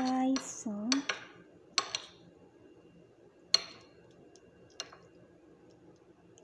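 Knife blade clinking against a ceramic plate while slicing boiled eggs: about four sharp separate taps spread over several seconds, the loudest about halfway through.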